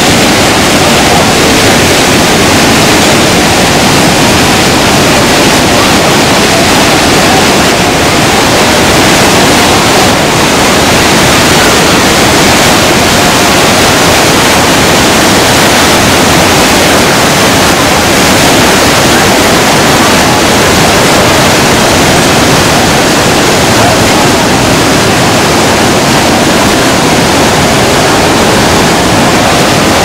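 A large waterfall's falling water rushing, a loud, steady, unbroken noise.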